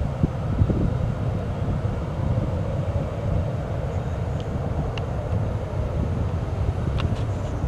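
Two Aero Vodochody L-39 jet trainers' single turbofan engines at takeoff power during a formation takeoff roll: a steady low rumble.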